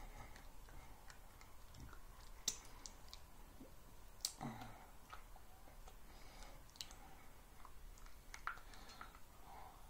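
Quiet room with a handful of faint, scattered sharp clicks and soft taps over a low hum.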